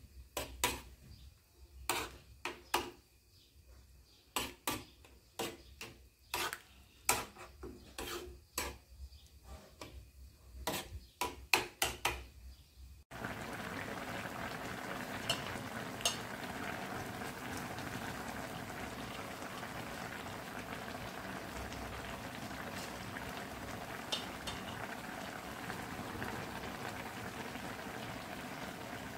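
Metal ladle clinking and scraping against a metal pot as tom yum soup is stirred, in a run of sharp separate clinks. About 13 s in it cuts abruptly to the soup simmering at a steady bubbling hiss, with a few faint clicks.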